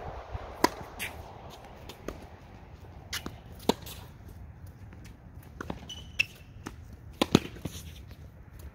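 Tennis rally: a ball struck by rackets and bouncing on the court, giving sharp pops every second or so, the loudest a close pair near the end. A short squeak comes about six seconds in.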